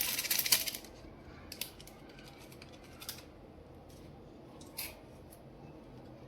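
Small plastic toy pieces or packaging being handled: a dense burst of crisp clicking and rustling in the first second, then a few single light clicks spaced a second or more apart.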